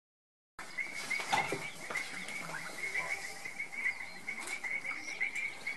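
Chorus of frogs at the pond, a fast pulsing trill held at one high pitch, starting about half a second in, with a few fainter calls mixed in.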